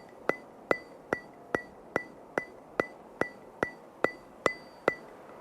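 A steady, even ticking at about two and a half ticks a second, twelve ticks in all. Each tick is a sharp click with a brief bright ring, like a clock or metronome.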